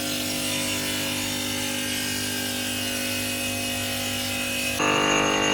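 Granite cutting machine's saw, driven by a 7.5 kW motor, running steadily with a whining tone. About five seconds in it turns louder, with a shriller whine.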